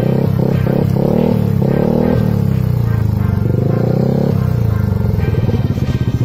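Yamaha Aerox 155's single-cylinder engine through an aftermarket exhaust, blipped repeatedly with quick rises and falls in pitch, then settling back to idle about four seconds in.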